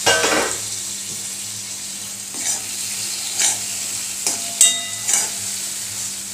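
Raw green tomato slices sizzling in hot oil in an aluminium kadai while a metal spoon stirs and scrapes the pan in several strokes, with one ringing clink of spoon on metal. A sharp metal clank at the start as the plate covering the pan is lifted off.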